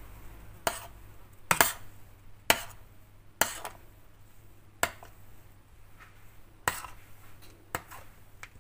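A metal spoon stirring thick sambal in a stainless steel pan, knocking against the pan in sharp clicks about once a second, seven or eight times, irregularly spaced.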